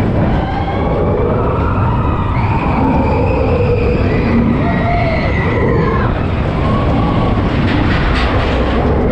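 Expedition Everest roller coaster train rumbling along its track through a dark tunnel, with long, high, gliding tones rising and falling over the rumble.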